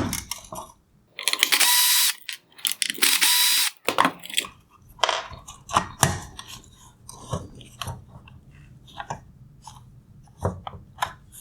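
Small power screwdriver running in two short runs of about a second each, a steady whine as it backs out screws. After that come a series of sharp clicks and knocks as plastic parts of the headlight are handled.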